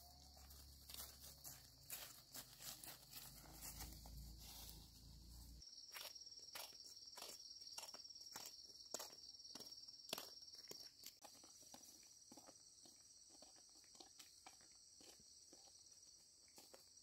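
Faint, steady high-pitched drone of insects, with soft irregular footsteps of people walking on a path. A low rumble underneath stops abruptly about six seconds in.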